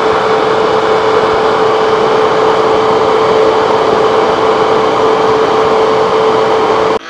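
A loud, steady machine-like hum: even noise with one constant mid-pitched tone, cutting off suddenly near the end.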